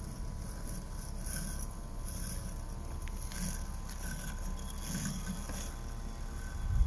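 Husqvarna Automower 430XH robotic lawn mower running, its electric motors giving a faint steady hum under a low rumble of wind on the microphone.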